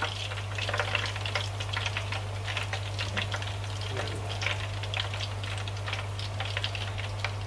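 Hot cooking oil in a pot sizzling and crackling with dense little pops as a freshly fried whole chicken drains just above it. A steady low hum runs underneath.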